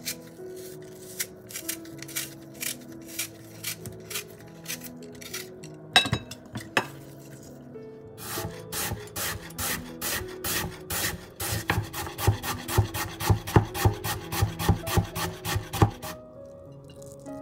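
A peeler scraping the skin off a crisp green apple in short strokes, then a kitchen knife chopping the apple into thin strips on a wooden cutting board, starting about eight seconds in with rapid, evenly spaced crisp chops. Soft background music underneath.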